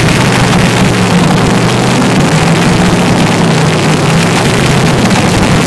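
Top Fuel dragster's supercharged nitromethane V8 running at a steady idle in a pit warm-up, very loud and raw through its open exhaust pipes, holding one even pitch with no revving.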